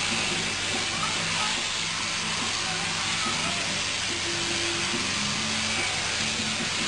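Sheep-shearing machine handpiece running steadily as it cuts through a sheep's fleece: a constant whirring hiss over a low hum.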